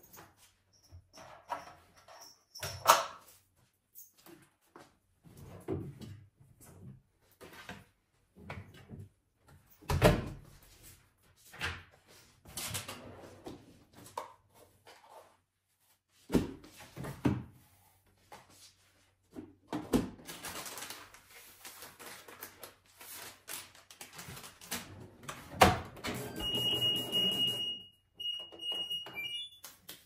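Clothes rustling and scattered knocks and thumps as laundry is loaded into an LG front-loading washing machine, with a loud thunk near the end as the door is shut. Then the washer's control panel beeps: one longer tone followed by a few short beeps as it is set going.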